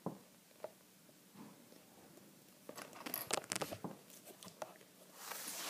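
Small plastic Lego pieces clicking and rattling as a hand picks through a pile of them on a wooden floor, in a quick flurry of clicks midway, with a brief rustle near the end.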